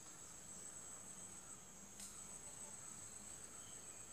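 Faint, steady high-pitched trill of crickets, with one soft click about two seconds in.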